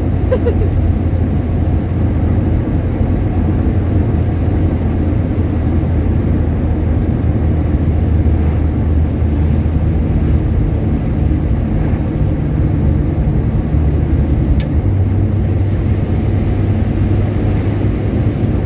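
1961 Rover P4 100's straight-six engine running steadily with road noise inside the car while driving. The engine note shifts about fifteen seconds in, just after a single short click.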